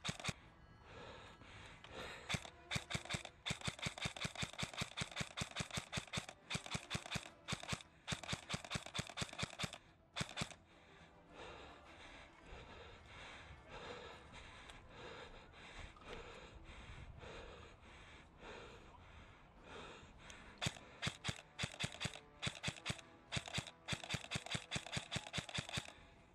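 Airsoft gun firing in rapid strings of sharp shots, several a second, in two long runs with a quieter stretch of about ten seconds between them.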